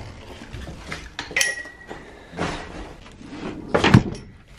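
Metal drum stands and hardware clanking and knocking as they are handled. One clank about a second and a half in rings on briefly, and the loudest knock comes near the end.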